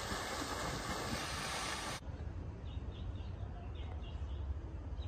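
Even splashing hiss of a fountain jet falling into its pool, which cuts off abruptly about two seconds in. After that, small birds chirp in short repeated notes over a low rumble.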